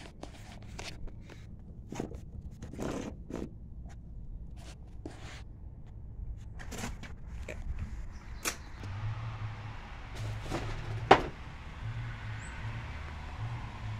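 Scattered light knocks and clicks of someone moving about with the camera, over a low background rumble. There is one sharp, louder knock about eleven seconds in.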